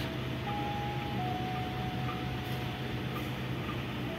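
Steady low hum of a passenger train standing idle at a station platform. A faint thin tone comes in about half a second in and is held, dropping slightly in pitch just after a second in.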